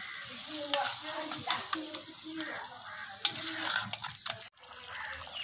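Metal spatula stirring and scraping rabbit meat in a clay cooking pot, with the curry sizzling as it fries over a wood fire. The sound cuts off suddenly about four and a half seconds in.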